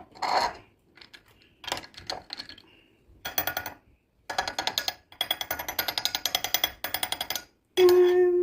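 Background music: scattered short sounds at first, then fast, even percussion from about three seconds in, with a steady held note coming in near the end.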